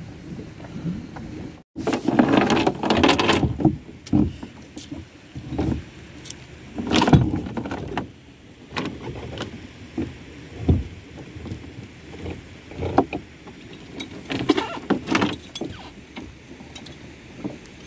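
Irregular knocks, clunks and rattles from handling gear on a small fibreglass boat's deck. They come in a dense cluster a couple of seconds in and again around seven seconds, then more sparsely, over a steady low hiss.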